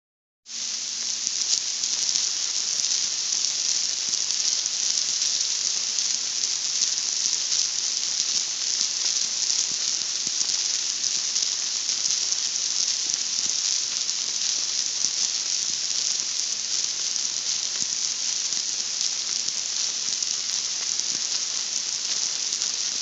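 Steady rain falling: an even hiss with scattered small drop ticks, starting suddenly about half a second in.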